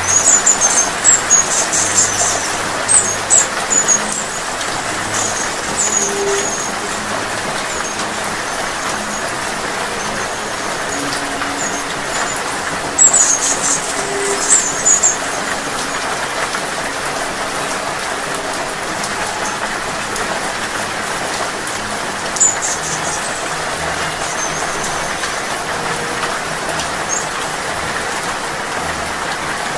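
Steady rain falling, with a hummingbird's high, thin chirps in short runs: several in the first few seconds, another run about halfway through, and single chirps later on.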